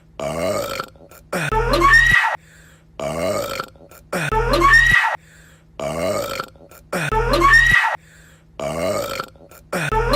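A man burping over and over, about eight burps each under a second long and spaced roughly a second and a half apart. Two burps alternate and repeat identically, as in an edited loop.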